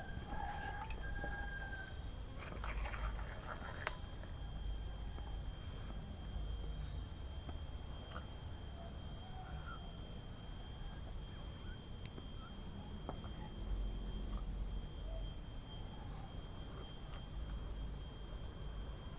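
Insects chirping in quick groups of three or four high pulses over a steady high insect drone. Underneath, soft low puffs of breath as a man blows through a hollow wooden hand-drill spindle to coax its ember into the dry banana-leaf tinder.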